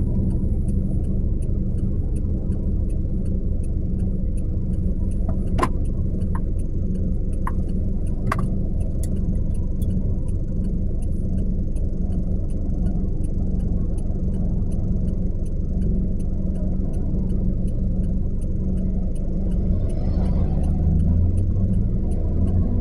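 A car's engine idling at a traffic light, heard from inside the cabin as a steady low rumble, with cross traffic passing. A few sharp clicks come about six and eight seconds in, and the low engine note rises near the end.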